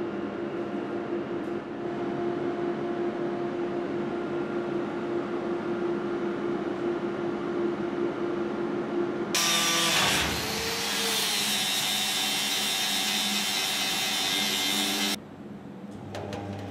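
Workshop machinery: a steady hum, then about nine seconds in a loud, harsh power-tool hiss that cuts off suddenly some six seconds later. Near the end come a few clicks and a short low buzz from a spot welder joining sheet steel, throwing sparks.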